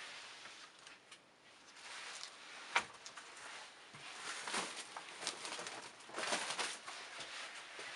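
Used shoes being handled and set down on a pile: irregular rustling and scuffing of soles and straps, with one sharp knock just under three seconds in.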